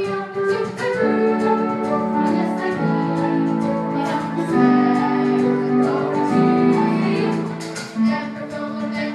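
Group singing a stage-musical song over instrumental accompaniment with a steady beat, holding long sustained notes through the middle.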